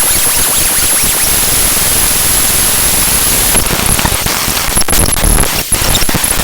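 Raw bytes of the OpenGL Extension Wrangler Library DLL played back as audio: loud, steady static hiss with a thin high whistle on top. About three and a half seconds in it breaks up into choppy, crackling noise with clicks and brief tones.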